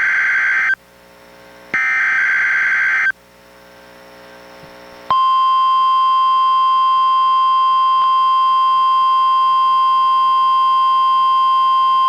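NOAA Weather Radio SAME digital header bursts: the end of one harsh, screechy data burst and then a second burst about a second long, played on a weather radio. After about two seconds of faint hiss, the steady 1050 Hz warning alarm tone comes on about five seconds in and holds, sounding the alarm for a Required Weekly Test.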